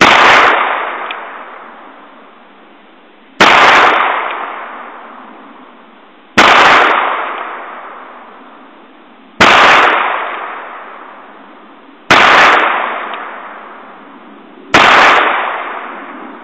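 Six shots from a Ruger Single Six revolver firing .22 Magnum rimfire full-metal-jacket rounds, spaced about three seconds apart. Each shot is followed by a long tail that fades away over two to three seconds.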